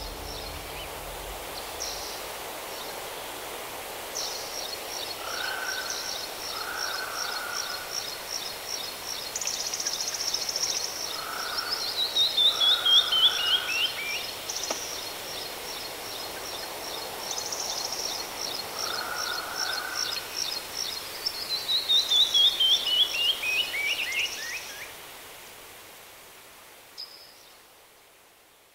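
Birds singing: one repeats a rapid, even series of high notes, and twice a run of notes steps steadily down in pitch. Everything fades out near the end.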